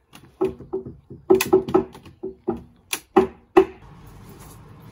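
Building work: about a dozen sharp, irregular knocks, each with a brief ringing tone, followed after about three and a half seconds by a steady low hiss.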